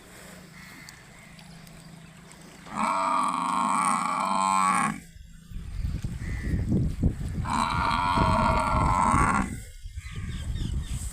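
Water buffalo mooing twice, each call about two seconds long, the second starting about four and a half seconds after the first. A low, rough rumbling noise runs under the second half.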